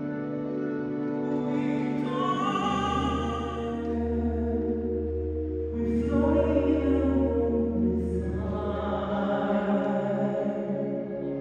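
Operatic classical-crossover music: a singer holding long notes over orchestral accompaniment, with a deep sustained note underneath in the middle stretch.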